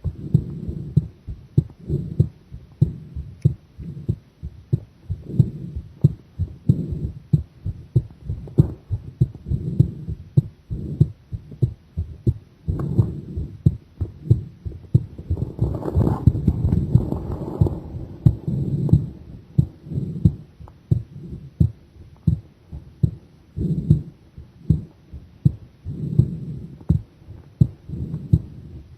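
A woman's heartbeat heard close up at the chest, a steady series of low thumps about once a second, recorded during a pressured breath-hold. For a few seconds around the middle a louder rushing noise rises over the beats.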